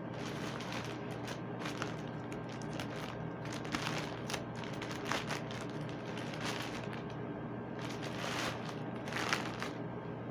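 Plastic courier mailer bag crinkling and tearing as it is pulled open by hand, in repeated bursts of rustling over a steady low hum.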